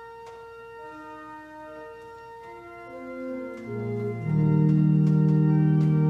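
Church organ playing sustained notes softly, a quiet melody moving over held chords; lower notes enter after about three and a half seconds and the sound swells much louder into a full held chord at about four seconds.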